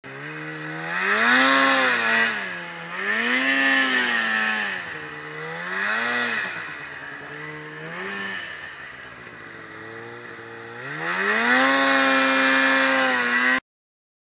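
Polaris 800 two-stroke snowmobile engine revving up and down as the sled pushes through deep powder. The revs climb and fall several times, then hold high for about two seconds near the end before the sound cuts off abruptly.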